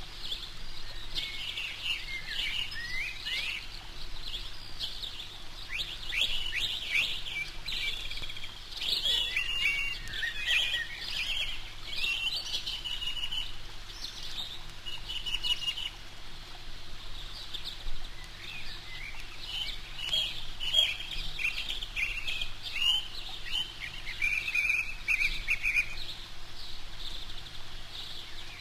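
Eurasian coot chicks peeping: many thin, high chirping calls overlapping in bursts, with brief lulls about halfway through and near the end.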